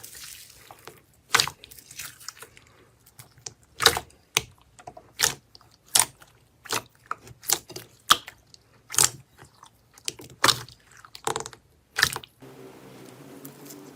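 Slime being squeezed and pressed, giving sharp crackling pops and clicks at uneven intervals of about one a second. The pops stop shortly before the end.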